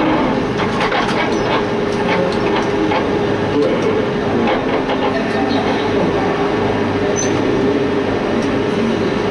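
MINI Challenge race car's engine running at steady revs, heard from inside the stripped cabin, with irregular clicks and rattles over the engine note.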